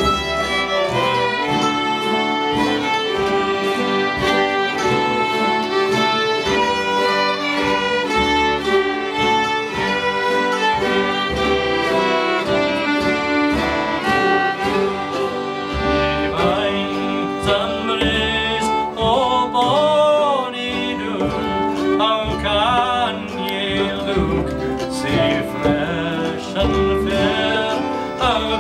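Fiddles playing a folk tune together with acoustic guitar and mandolin backing. About halfway through, a man's singing voice comes in over the instruments.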